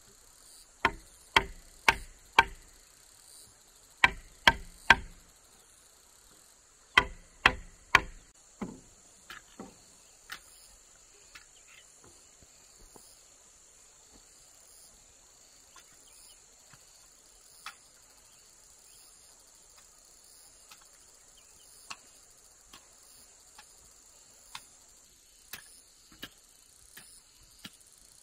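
Hammer blows on wood, loud and sharp, in quick runs of three to five about half a second apart. After about ten seconds the blows come singly, spaced out and fainter. Insects keep up a steady high buzz behind them.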